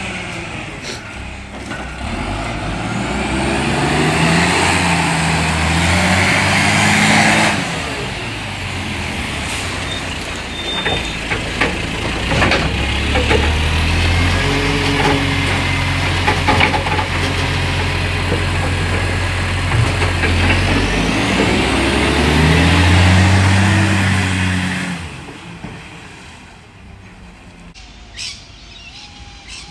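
Garbage truck's Euro 6 diesel engine revving up and down twice, with knocks and clatter in between, then dropping away about 25 seconds in. The engine has an exhaust leak that gives it a very unusual sound.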